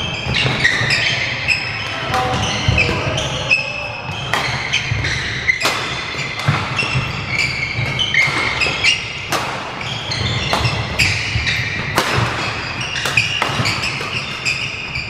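Badminton doubles rally on a wooden indoor court: a string of sharp racket strikes on the shuttlecock and thudding footfalls, mixed with short high squeaks of shoes on the floor.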